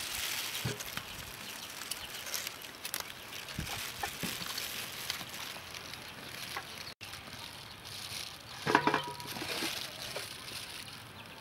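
Outdoor background ambience with scattered light clicks and knocks, and a short, louder pitched call about nine seconds in.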